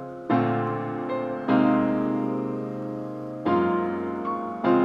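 Background music: piano chords, each struck and left to fade, with a new chord about every one to two seconds.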